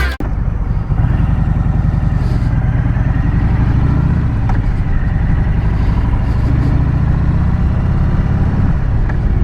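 Harley-Davidson Sport Glide's Milwaukee-Eight V-twin engine running steadily at idle, a deep even rumble.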